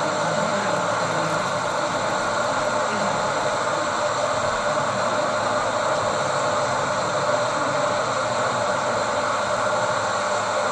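Steady hubbub of a busy model railway exhibition hall: many visitors' voices blurred into an even murmur, with no single clear voice.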